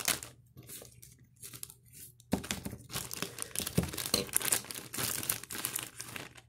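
Plastic packaging crinkling and rustling as it is crumpled and torn open by hand, in irregular crackles that grow busier from about two seconds in.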